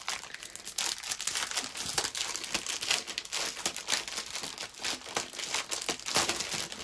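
Plastic packaging crinkling as it is handled, in dense, irregular crackles, loudest about six seconds in.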